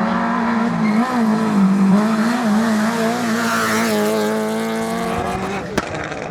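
Rally car engine running hard at high revs, its pitch wavering up and down as the throttle is worked, with a single sharp crack near the end.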